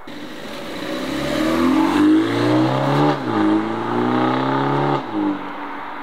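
A modified BMW's engine and exhaust accelerating hard: the revs climb, dip briefly about three seconds in and climb again, then drop off sharply about five seconds in. A short blip of revs follows, then the engine settles to a steady lower note.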